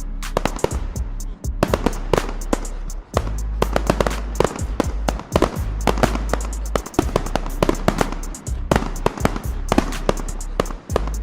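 Fireworks going off in rapid, irregular bangs and crackles, several a second, over background music with a steady low bass.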